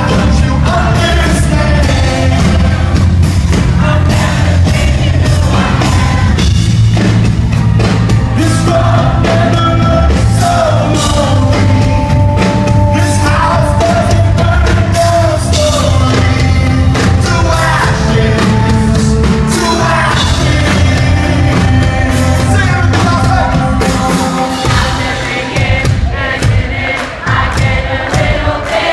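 Live rock band playing loud, with a male lead singer singing into a microphone over heavy, steady bass and drums. The music eases off somewhat near the end.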